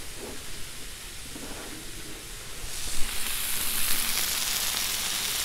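Pork chops sizzling on a hot flat-top griddle. About three seconds in, the sizzle grows louder and brighter as compound butter is spooned onto a chop, with a sharp tap near the start of the rise.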